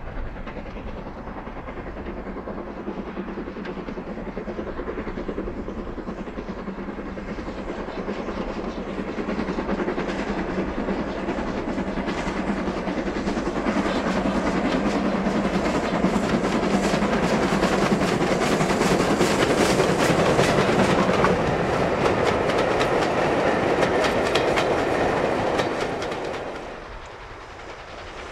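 BR Standard Class 2 2-6-0 steam locomotive 78019 working hard with a train of coaches, its exhaust beats and the clatter of wheels over rail joints growing louder as it approaches and passes. Near the end the sound drops away sharply to a quieter, more distant train.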